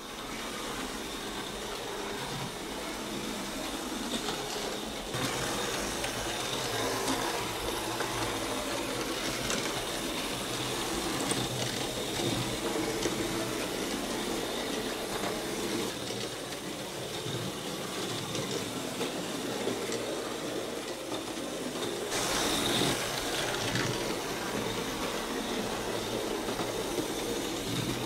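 Faller AMS slot cars running on the layout: a steady whirring and rattling of their small electric motors on the plastic track, changing slightly a few times.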